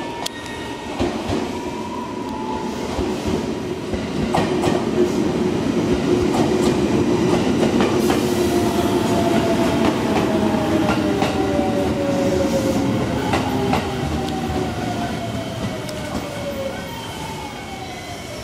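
JR Shikoku 7000 series electric train pulling into the platform and braking to a stop: a steady rumble with wheels clicking over rail joints, loudest while the cars pass. Near the end, several whines fall in pitch as the train slows.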